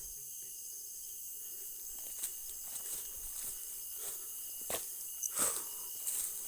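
Steady high-pitched chirring of night insects, with a few scattered footsteps along the way.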